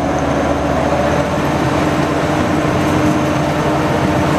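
Engine of a WWII-type DUKW amphibious 'duck' vehicle running steadily while afloat, a constant drone with an even hum underneath.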